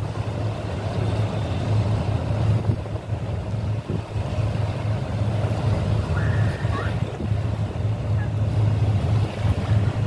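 Steady low drone of a boat's engine under the rush of wind and choppy water.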